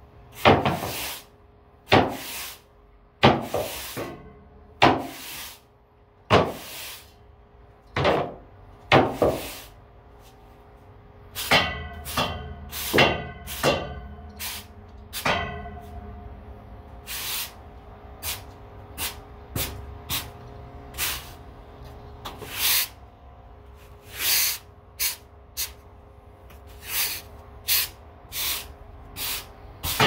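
Stiff-bristled push broom sweeping a concrete floor: a run of scratchy brush strokes, about one every second and a half at first, then quicker and shorter strokes from about a third of the way in.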